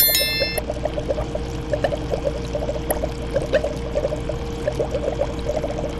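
Aquarium water bubbling and trickling steadily, over a steady hum. A short, bright chime rings at the very start.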